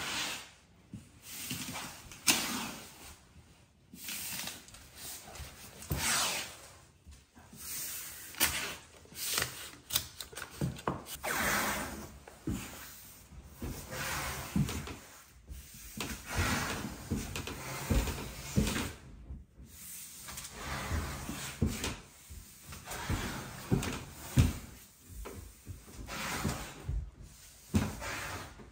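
Painter's tape being pulled off the roll again and again in short tearing rips, with rustling and light knocks between.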